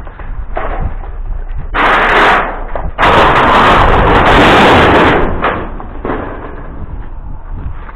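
Scrap sheet metal being handled: a short loud clatter about two seconds in, then a longer loud crashing and scraping of metal lasting about two seconds.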